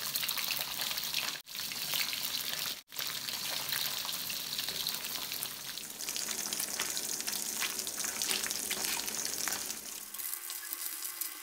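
Flaked short mackerel meat deep-frying in hot oil in a wok: a steady crackling sizzle as the fish fries toward golden and crisp. Two brief silent gaps break it in the first three seconds.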